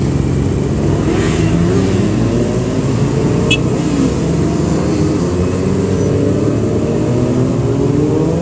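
Many sportbike engines passing in a continuous stream, overlapping, their pitch rising and falling as each bike goes by.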